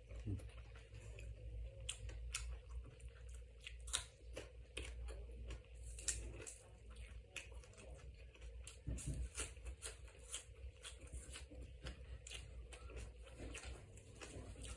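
A person chewing and biting spicy stir-fried eel, with many short wet clicks and crunches of the mouth and food. A steady low hum runs underneath.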